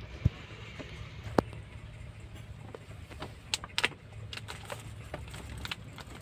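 Chicken eggshells clicking and knocking together as a kitten climbs over a crate full of eggs: scattered irregular taps, two sharp ones in the first second and a half and a quick cluster past the middle, over a steady low hum.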